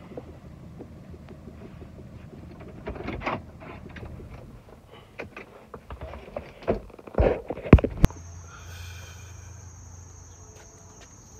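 Scattered knocks and clicks of handling inside a truck cab over a low hum, the loudest near the end of the first part. Then, after a sudden change about eight seconds in, crickets chirring steadily outdoors.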